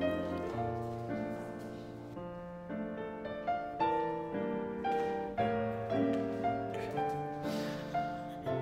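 Piano music: a melody of struck notes, several a second, each fading away, over lower held bass notes.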